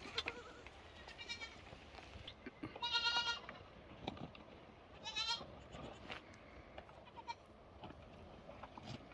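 Goat kids bleating: three high, quavering bleats. A faint one comes about a second in, the loudest about three seconds in, and another about five seconds in.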